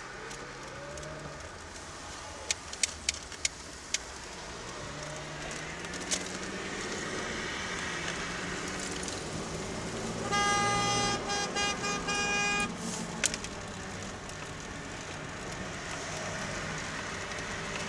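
Car horn honked, one held blast about ten seconds in followed by several short toots, to warn a driver whose headlights are off. Underneath, the car's engine and road noise as heard inside the cabin, the engine note rising as it speeds up, with a few sharp clicks about three seconds in.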